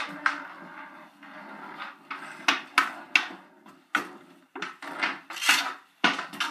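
Hockey sticks clacking in quick, irregular hits against the floor, each other and the ball or puck during floor hockey play, with scrapes between the knocks.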